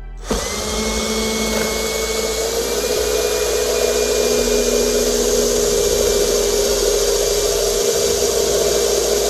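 Cordless drill running steadily as a long bit bores a freehand angled pocket hole through a wooden 2x2. The motor whine holds one pitch, rising slightly about two and a half seconds in, and cuts off suddenly near the end.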